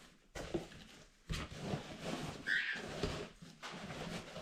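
Cloth being folded and pushed into the bottom of a cardboard box, rustling and scuffing in several bouts, with one short high chirp about halfway through.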